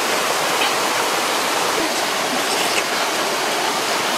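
Steady rush of running water, like a stream flowing over rocks.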